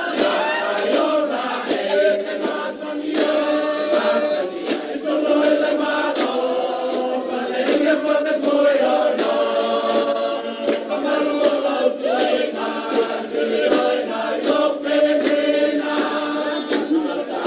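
A group of voices singing a Samoan song in chorus, with frequent sharp percussive hits.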